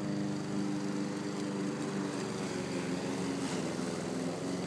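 Walk-behind lawn mower engine running steadily while cutting long, overgrown grass.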